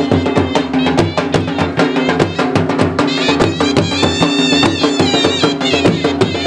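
Traditional folk music: fast, evenly spaced drumbeats under a high, wavering melody line over a held low tone.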